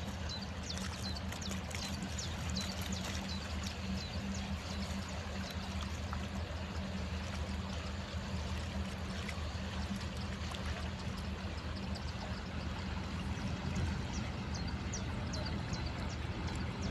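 Steady low drone of ship engines under the rush and wash of moving water, with many small splashing ticks, most of them in the first few seconds and again near the end.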